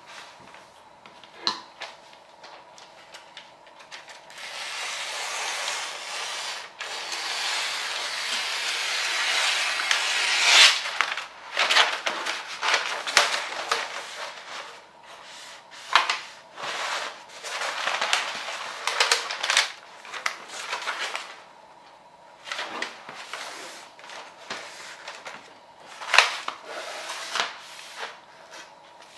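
Wrapping paper handled on a table: a long steady paper rustle lasting about six seconds and growing louder, then repeated crinkling rustles and sharp crackles as the paper is folded around a box.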